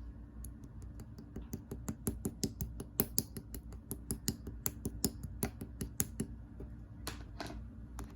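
Clear slime being squeezed and pressed by hand, giving a quick run of sharp clicking pops from trapped air, about four or five a second, then two longer squelching sounds near the end.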